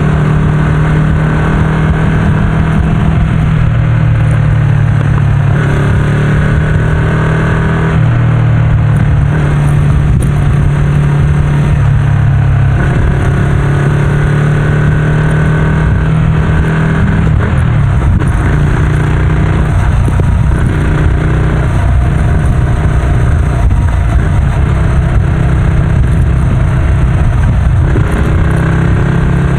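Ducati Scrambler's air-cooled L-twin engine through a Termignoni full-system exhaust, running loud and steady at motorway cruising speed, its pitch rising and dipping a little several times with the throttle.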